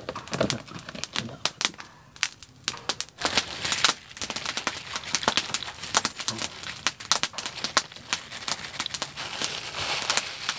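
Thin plastic bag crinkling and rustling as it is handled and its contents are tipped into a mortar: a dense run of small crackles, busiest from about three seconds in.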